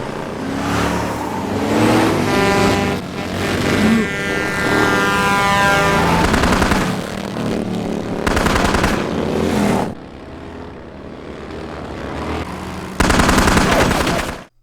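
Action-scene soundtrack of a TV drama: vehicle engines running, with bursts of rapid automatic gunfire about eight seconds in and again near the end.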